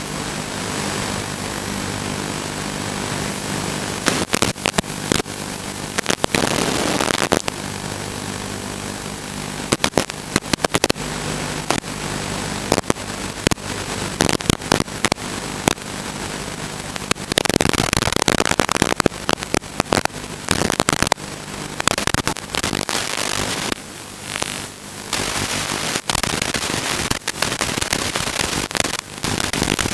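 Static hiss and a steady buzz on the audio channel of an analog FPV video link, broken by many sharp crackles as the signal drops in and out. The buzz fades about halfway, and the hiss swells for a couple of seconds soon after.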